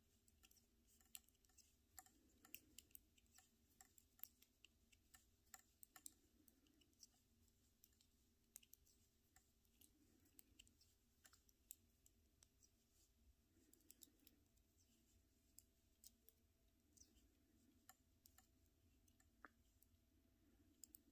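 Metal knitting needles clicking faintly and irregularly against each other as stitches are knit across a row.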